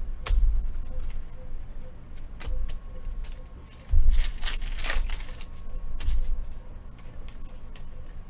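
Trading cards and foil card packs being handled on a table: scattered light clicks and low thumps, with a papery rustle of packaging about four to five seconds in.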